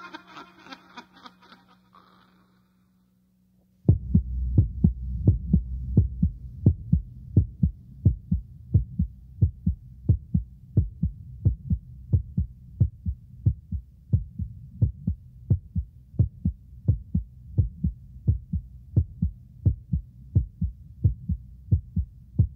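Heartbeat sound effect from a spooky-sounds cassette: a voice trails off, then after a brief silence about four seconds in a steady low thumping heartbeat starts, about two beats a second, over a low hum.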